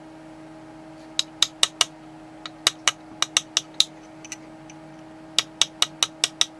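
Light, quick taps on the back of a concrete-nail graver as it cuts metal: sharp clicks about five a second in three short runs, starting about a second in, over a steady low hum.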